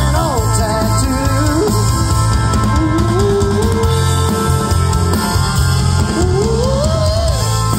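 Live country-rock band amplified through a PA: drum kit and electric guitars, with a lead line of bending, sliding notes over the steady beat.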